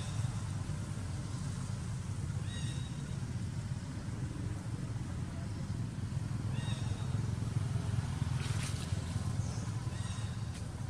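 Steady low outdoor rumble, with a short high-pitched chirp three times, about four seconds apart.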